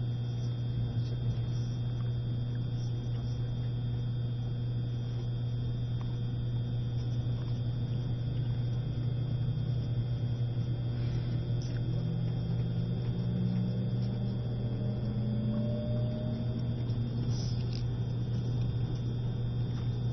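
E653 series electric train running slowly, heard from on board: a steady low hum with a constant high tone. About halfway through, a motor whine rises slowly in pitch for several seconds as the train picks up a little speed.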